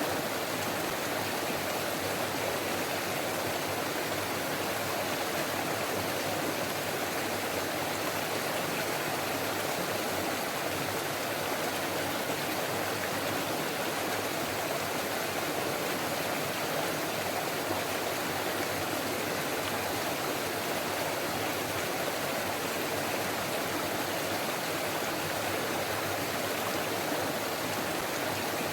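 Forest stream flowing over rocks, a steady babbling rush of water with no pauses or single events.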